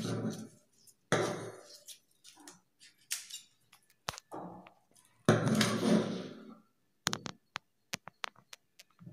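Scissors cutting through paper pattern sheet along a curved line: bursts of crisp paper rustling and cutting noise, then a run of sharp snips of the blades near the end.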